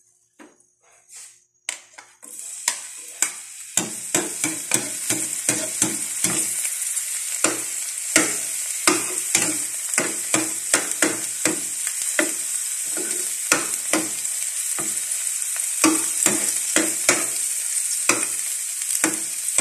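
Chopped garlic sizzling in a little hot oil in a nonstick frying pan, starting about two seconds in. A metal spoon stirs it, knocking and scraping against the pan about twice a second.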